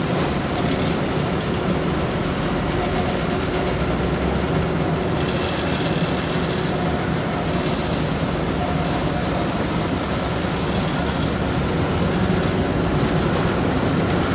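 Heavy asphalt-paving machinery, diesel engines running steadily, with a higher hiss and rattle for a couple of seconds about five seconds in.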